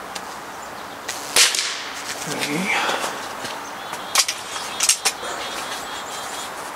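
Crosman Shockwave .22 break-barrel air rifle firing once, about a second and a half in: a single sharp report with a short ring after it. A few seconds later come two or three sharp clicks.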